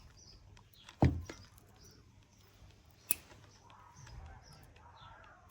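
Small handling noises of jewellery-making at a work table as a jump ring is being added: a knock about a second in as something is set down, and one sharp metallic click about three seconds in, with faint ticks between.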